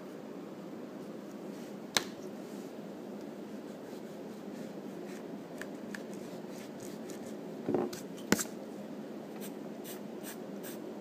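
Pencil scratching on drawing paper while sketching, with an eraser rubbed over the paper partway through. Sharp taps about two seconds in and twice near eight seconds.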